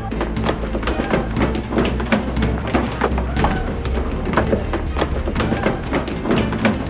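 Rapid, irregular knocks and thuds, several a second, over background music with a steady low bass.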